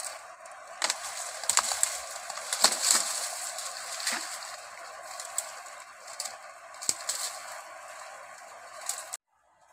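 Dry sticks and twigs cracking and snapping as they are broken off a dead stump by hand, with leaves rustling, over a steady background hiss. The sharp cracks come in an irregular scatter, thickest in the first three seconds, and everything cuts off suddenly near the end.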